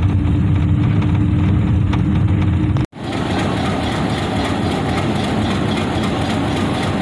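Road vehicle running with a steady engine hum, heard from inside the cabin, cut off suddenly about three seconds in. Then a Hitachi HBU-20 diesel-electric locomotive idling steadily at the platform.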